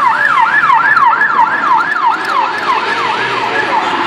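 Emergency vehicle siren sounding in fast repeating downward sweeps, about three a second, over the hum of city traffic, fading toward the end.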